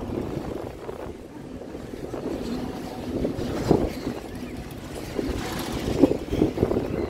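Wind buffeting the microphone as the tub of a Tornado spinning fair ride whirls around, a steady low rumble of rushing air with louder gusts about halfway through and again near the end.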